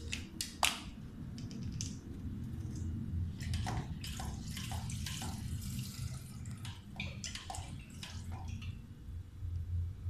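Plastic bottle cap clicking and clattering as an Alexandrine parakeet bites and pushes it around. A few sharp clicks in the first two seconds, the loudest under a second in, then runs of tapping and clatter about four seconds in and again near eight seconds.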